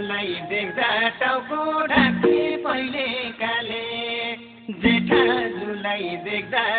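Nepali folk song (lok geet): a sung melody over string accompaniment, dipping briefly about two-thirds of the way through.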